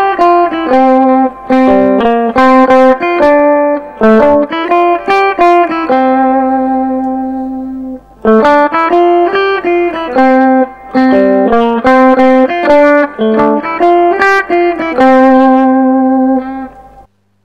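Electric guitar played through a Mesa Boogie Recto-Verb 25 tube combo amp: picked single notes and short melodic phrases. About six seconds in, one note is left to ring and fade for around two seconds before the phrases start again, and the playing stops just before the end.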